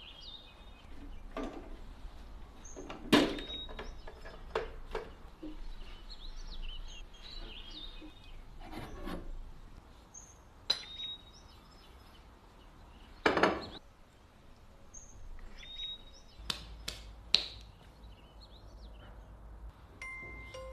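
Household objects being handled: rubbing and brushing, with a sharp knock every few seconds as things are set down, and faint high chirps in the background.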